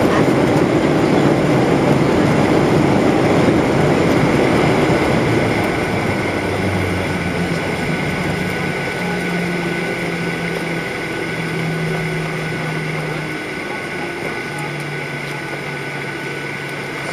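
Boeing 737 cabin noise heard by the over-wing window as the airliner slows on the runway after landing: a loud steady rush of engine and rolling noise that dies away gradually, leaving a lower hum by the end.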